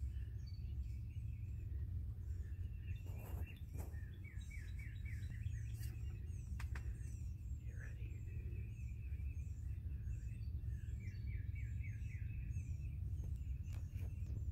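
Several songbirds singing, with repeated chirps and quick trilled phrases, over a steady low rumble. A few soft knocks come through, around three to four seconds in, near the middle and near the end.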